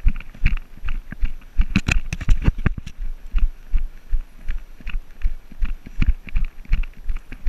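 Running footsteps on a dirt trail, picked up through a camera carried by the runner: steady low thuds, about three a second.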